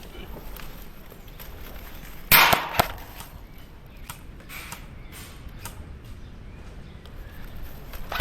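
Airsoft guns firing in a game: scattered faint pops, with a louder short burst about two seconds in, followed by a sharp click.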